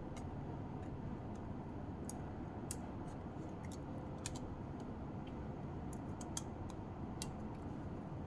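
Scattered light clicks and taps from handling a camera and its battery, about nine in all at irregular intervals, over a steady low hum.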